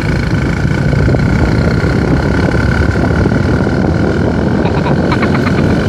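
Motorcycle moving at road speed: steady engine noise under wind rushing over the microphone. A rapid pulsing higher sound joins near the end.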